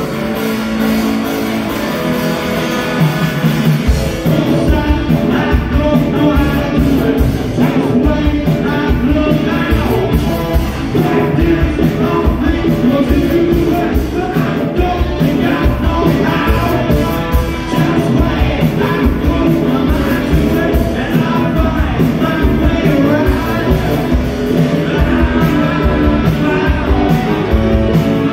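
Live rock band playing a song: electric guitar alone at first, then drums and bass come in about four seconds in, with singing over the band.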